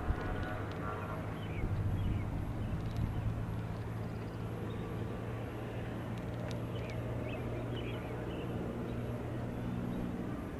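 Piper Malibu Mirage's single turbocharged six-cylinder piston engine and propeller running at a low, steady drone as the plane taxis, the pitch stepping up about eight seconds in. Faint bird chirps come over it now and then.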